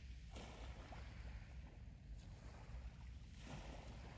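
Small waves washing in over a pebble beach, two soft hissing washes about three seconds apart, over a steady low rumble.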